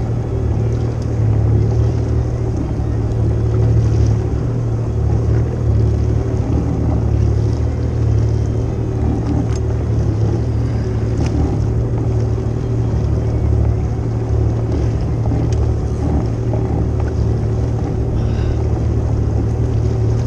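Jet ski engine running with a steady low hum.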